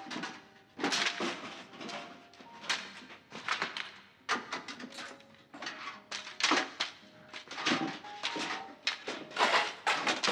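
Mops, brooms and other cleaning gear clattering and rustling as they are hauled out of a cupboard, with irregular knocks of wooden handles against the door frame and walls.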